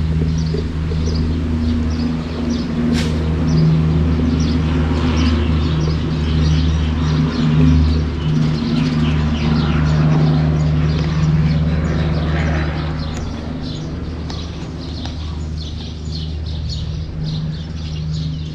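Small birds chirping many times over a steady low mechanical hum. The hum is the loudest sound and cuts off near the end.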